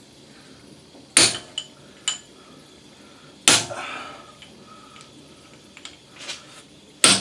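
Hammer striking a steel chisel, metal on metal, to drive out the remains of a broken worm screw: three hard blows and one lighter tap, a few seconds apart, each with a short ring.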